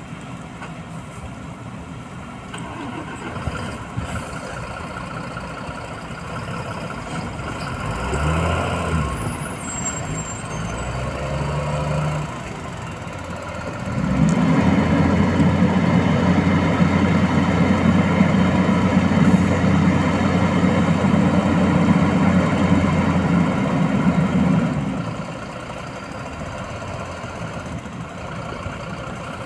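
Heavy diesel engines of hydraulic excavators and a tipper truck running. About halfway through, a much louder, steady low rumble starts suddenly, runs for about ten seconds, then drops back.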